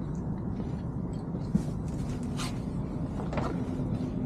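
Steady low rumble of an idling boat engine with a faint steady hum, and three short knocks or clatters in the middle.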